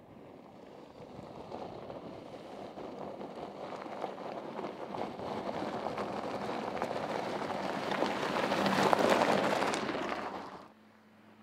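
Porsche Cayenne SUV coming down a loose gravel track, its tyres crunching and scattering stones, growing steadily louder as it nears and passes close, then cutting off suddenly near the end.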